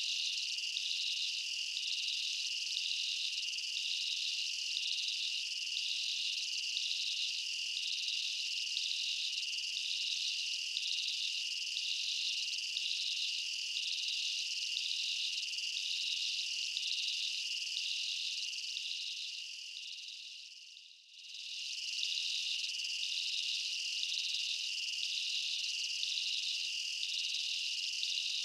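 Insect chorus: a steady high-pitched trill with a regularly pulsing layer above it. It fades out briefly and comes back about two-thirds of the way through.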